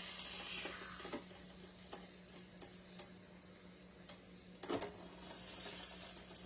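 Flour-dredged beef shank sizzling in hot oil in a pan, searing on high heat, with a couple of short knocks of the pan or utensils.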